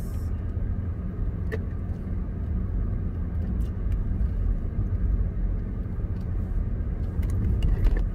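Car being driven, heard from inside the cabin: a steady low rumble of engine and road noise, with a few light clicks.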